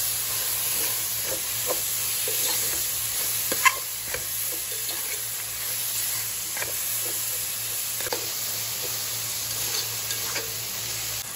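Sliced onions, garlic and ginger sizzling in coconut oil in a nonstick pot as they are stirred with a spoon, with occasional clicks and scrapes of the spoon against the pan and one sharper click a little over a third of the way in. The onions are being fried with salt to soften them.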